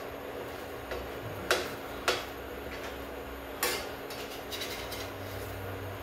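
A utensil clinking against the pan or dishes while a crepe cooks: a few sharp clicks, the loudest about one and a half and two seconds in, over a steady hiss.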